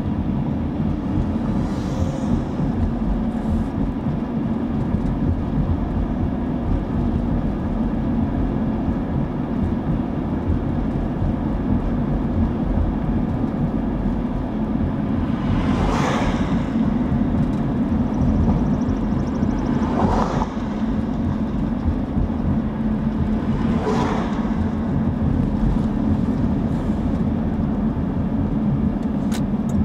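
Steady low road and engine rumble of a car driving along a city street, heard from inside the car. Past the middle come three brief whooshes about four seconds apart, as other traffic passes.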